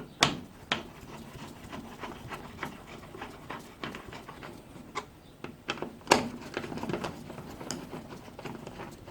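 Metal and plastic barbecue parts and bolts being handled and fitted during assembly: scattered clicks and knocks, the loudest just after the start and again about six seconds in, over faint rustling.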